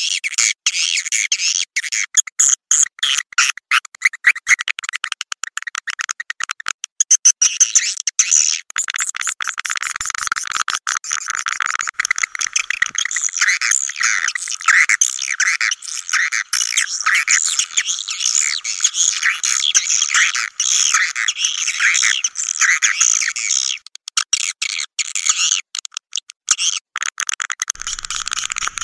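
Swiftlet call recording used as a lure for swiftlet houses: dense, continuous twittering and chirping of edible-nest swiftlets, with bursts of rapid clicks, thickest in the first third, and all of it high-pitched with no low end.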